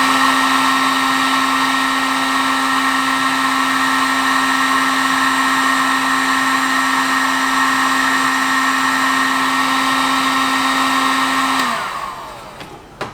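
Heat gun blowing steadily with an even motor whine while shrinking weatherproof heat-shrink connectors; it is switched off near the end and its motor winds down, falling in pitch, followed by a click.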